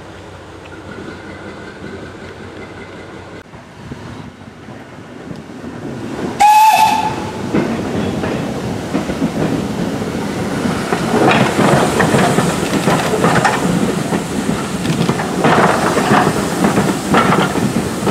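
A steam locomotive gives one short whistle blast about six seconds in. A train of carriages then rolls past close by, its wheels rumbling and clicking over rail joints and points.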